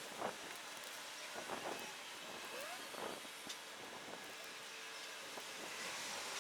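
Steady wind hiss on the microphone, with a few faint light knocks near the start.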